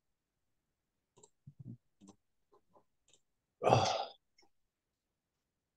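A few faint scattered clicks and small noises, then, about three and a half seconds in, a short loud breathy vocal sound from a person lasting about half a second.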